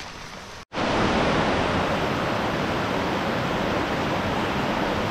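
Mountain stream rushing over rock slabs and small cascades: a steady, loud wash of water noise that starts abruptly after a momentary gap just under a second in.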